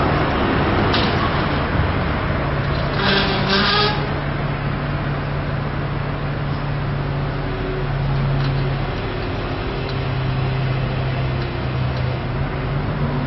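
A large engine running steadily with a low hum, with a short higher-pitched sound about three seconds in.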